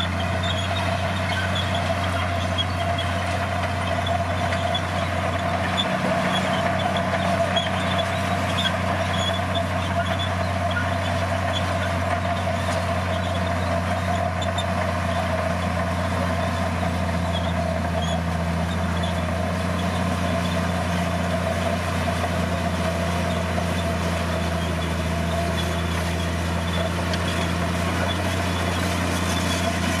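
Komatsu D60P bulldozer's diesel engine running steadily under load as the blade pushes a heap of soil.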